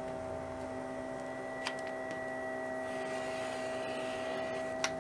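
Steady background hum made of several steady tones. Over it, two sharp light clicks a few seconds apart as an acrylic quilting ruler is pressed on a cutting mat and a 60 mm rotary cutter is run along its edge.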